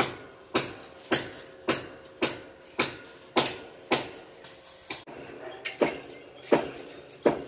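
Steady hammer blows on metal, a little under two a second, each ringing briefly. The rhythm falters once about two-thirds of the way through, then picks up again.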